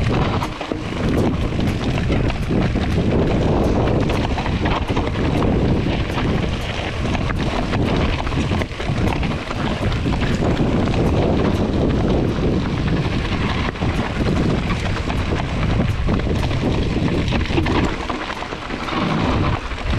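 Mountain bike descending a loose, rocky dirt track: steady wind noise on the camera's microphone, with the tyres crunching over stones and many small knocks and rattles from the bike.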